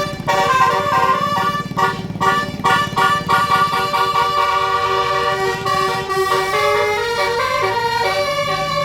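Basuri telolet musical air horn on a tour bus playing a stepping multi-note melody, several tones at once, over the bus engine running.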